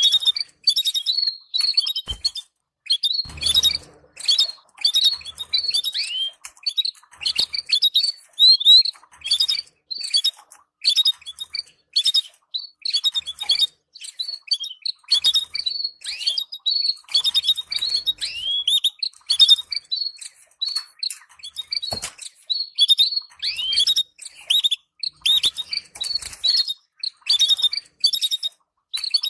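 Canaries chirping and twittering in quick bursts of short, high notes and down-slurred calls, with brief pauses between clusters. This is the excited chatter that breeders play to stimulate canary pairs to breed.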